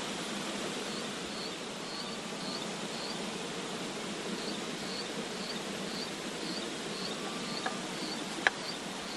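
Forest insects drone steadily, with a regular high chirp about twice a second. Near the end comes one sharp knock of a machete blade striking wood.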